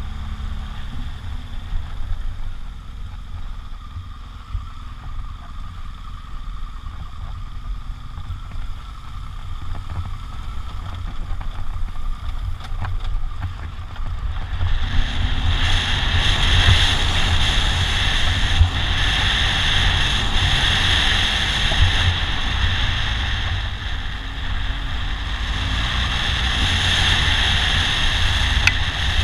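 BMW R1200GS Adventure's boxer-twin engine running as the bike is ridden along a dirt track, with wind rumbling on the microphone. The sound gets louder and harsher about halfway through.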